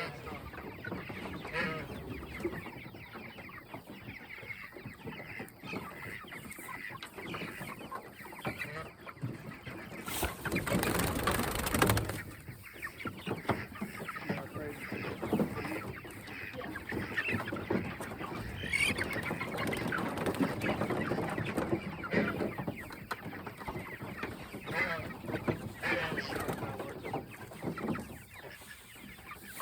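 A flock of Cornish cross meat chickens calling continuously. About ten seconds in, a loud rushing noise lasts for about two seconds.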